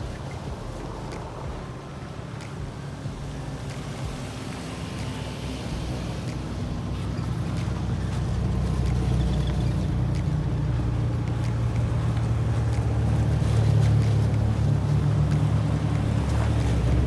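Off-road 4x4 vehicle's engine running, a low steady drone that grows louder from about a third of the way in.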